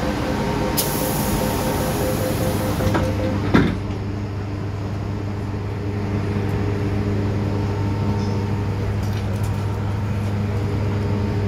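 MTR M-Train passenger doors closing: intermittent warning beeps, then the doors shut with a sharp thump about three and a half seconds in. After that comes a steady low hum from the train's equipment while it stands at the platform.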